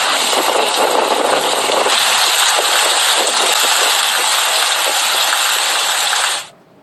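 Heavy rain pouring down, a steady hiss with splashing water. It cuts off abruptly near the end.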